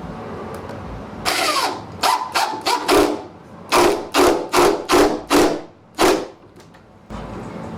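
Power drill driving a wood screw through the door's latch plate in a series of short trigger pulses, about a dozen quick bursts with the motor's pitch rising and falling.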